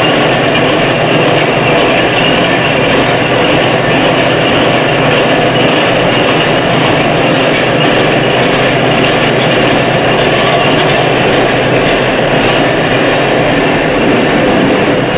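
Tin can filling and seaming machine running at speed: a loud, steady, dense mechanical noise with a low hum beneath it.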